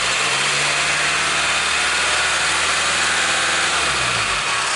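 Exhaust of a VW Transporter T5's 1.9 TDI (BRS) four-cylinder turbodiesel running, heard close up at the tailpipe as a steady rushing hiss over the engine's low, even running note.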